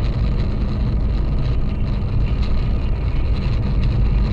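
Steady low rumble of a car on the move, engine and tyre noise heard from inside the cabin.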